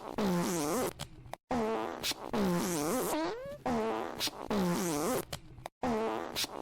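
Prank soundboard fart sound effects played back to back: about four drawn-out, pitched farts whose pitch wobbles and dips, each cut off sharply before the next begins.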